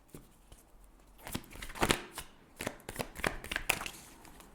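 Tarot cards being shuffled and drawn by hand: a run of quick, irregular papery flicks and taps that starts about a second in.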